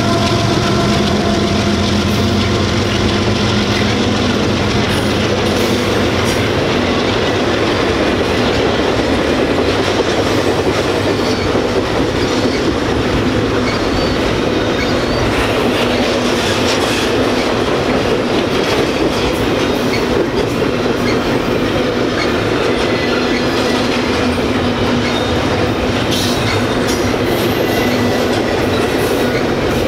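A GE ES44AC-H diesel locomotive's V12 engine running as it passes, its hum fading over the first couple of seconds, then the steady loud rumble of double-stack intermodal well cars rolling by, with wheels clicking over the rail and brief high wheel squeals now and then.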